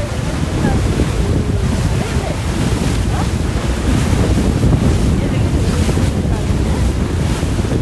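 Wind buffeting the microphone and water rushing along the hull of a speed boat under way: a loud, steady noise.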